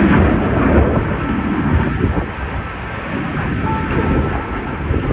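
Loud, continuous rumbling noise of wind buffeting the microphone.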